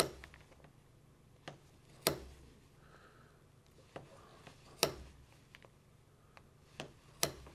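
Plier-style size 8 leather hole punch squeezed through heavy latigo leather, giving four sharp clicks about two and a half seconds apart as each hole is cut, with a few faint ticks of handling between.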